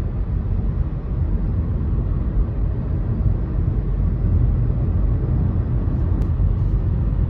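Steady low rumble of road and engine noise inside a moving car, with a faint click about six seconds in.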